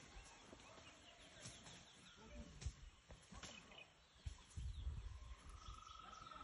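Near silence: faint outdoor background with scattered small clicks, a few low thuds past the middle, and a steady high whine that starts about five and a half seconds in.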